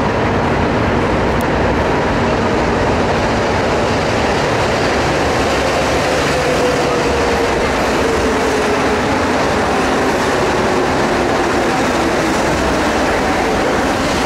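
Mexico City Metro train pulling into the station alongside the platform: a loud, steady running rumble, with a faint motor whine that falls in pitch as the train slows.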